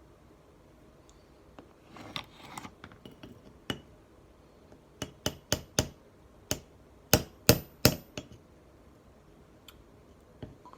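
Hammer tapping on a slip joint knife's pivot pin and bolster, about eight sharp metallic strikes in quick groups, some leaving a brief high ring, after some lighter clicks of handling: peening the pivot to take up the blade play.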